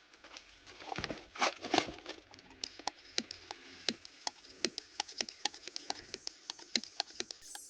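A rapid, irregular series of sharp clicks and light knocks, loudest in a cluster about one to two seconds in.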